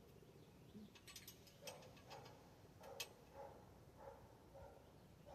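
Faint clicks and ticks of metal bicycle parts and hand tools being handled during work on a bike's stem and handlebars, with a few sharper clicks about a second in and near three seconds.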